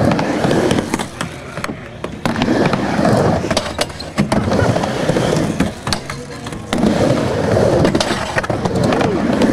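Skateboard wheels rolling back and forth across a portable mini ramp, the rumble swelling and fading with each pass, with a few sharp clacks.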